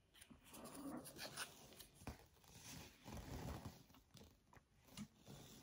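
Faint handling noise: quiet irregular rustling and scraping, with a few light clicks, from working paint on a tile with a wooden craft stick.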